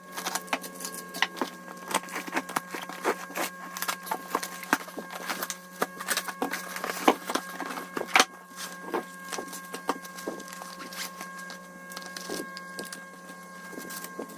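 Hands handling and opening a parcel: irregular clicks, taps and rustles of packaging, over a steady hum.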